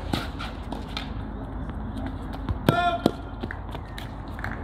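Tennis rally on a hard court: sharp pops of the ball struck by rackets and bouncing on the court, several times, the loudest two close together near the middle.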